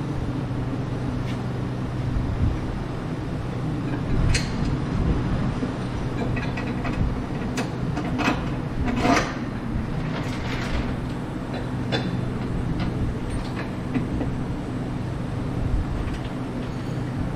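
Steady low machine hum with scattered metallic clinks and knocks as a steel chassis brace and its hardware are lined up and fitted by hand; the knocks come in a cluster around the middle.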